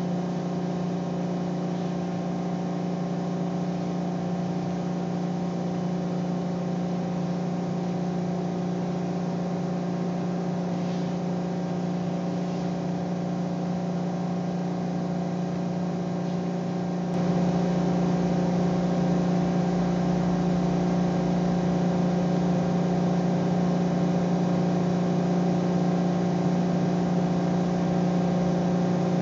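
A steady machine hum with a low, even pitch, growing a little louder and fuller about two-thirds of the way through.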